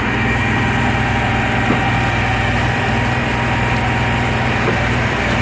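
Diesel engines of a concrete pump and readymix mixer truck running steadily while concrete is being pumped.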